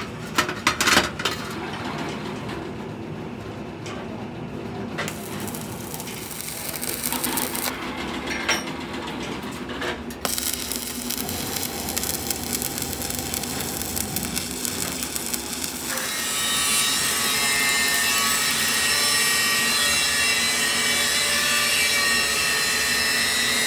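Electric arc welding of a steel tractor wheel rim's centre disc to the rim: a steady crackling hiss, loudest and most even from about two-thirds of the way in. Near the start, a few sharp metal knocks as the steel disc and rim are handled.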